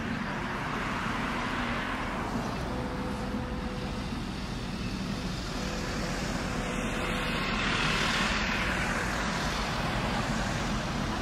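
Road traffic: cars passing on the road, with tyre and engine noise over a steady low rumble. One car swells loudest as it goes by about eight seconds in.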